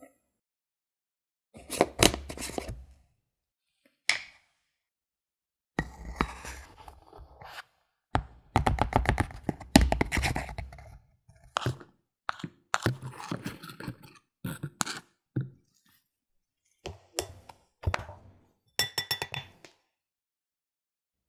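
Metal measuring cup scooping, scraping and tapping in dry ingredients and against containers, and flour pouring into a glass mixing bowl. The sound comes as a string of separate short knocks and scrapes with silence between.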